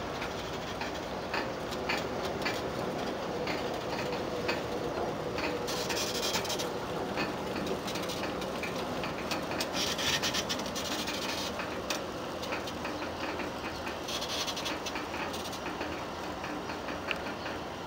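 Freight aerial ropeway running: a limestone bucket's carriage rolls along the track cable overhead, making a steady rolling rumble with irregular clicks. Brief high hissing bursts come three times.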